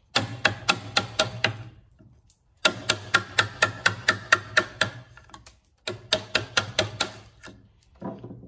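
Wooden mallet tapping a chisel in quick light blows, about four a second, in three runs with short pauses, driving the chisel through softwood to chop out the waste of a housing joint.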